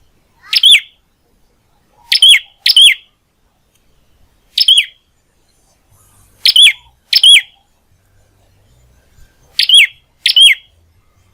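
Prenjak (prinia) giving short, sharp chirping calls, eight in all: two single calls and three quick pairs, with pauses of a second or more between them.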